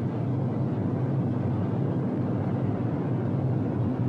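Steady low drone of a B-17 Flying Fortress's Wright Cyclone radial engines in flight, one engine feathered on the landing approach.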